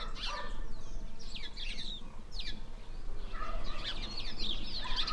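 Many small birds chirping in quick short notes, thinning out about two seconds in and busier again toward the end, mixed with calls from farmyard fowl.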